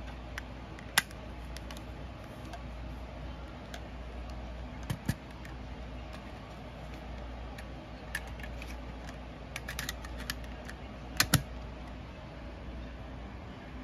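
Scattered plastic clicks and taps from handling a Sony MZ-R91 MiniDisc recorder and setting it into its battery case: a sharp click about a second in, a double click around five seconds, a few light ticks, then two louder clicks near the end, over a faint steady low hum.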